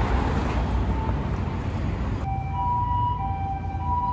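A steady rushing noise, then from about two seconds in a two-tone ambulance siren alternating between a higher and a lower note, the hi-lo pattern of a Japanese ambulance.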